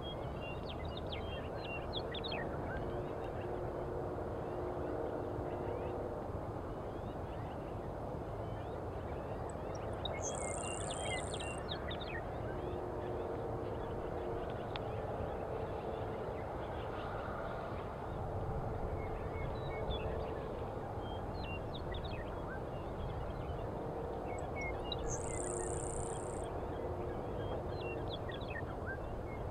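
Grasshopper sparrow singing twice, about fifteen seconds apart: each song is a thin, very high buzz lasting about a second. Scattered short high chirps and ticks and a steady low background noise run throughout.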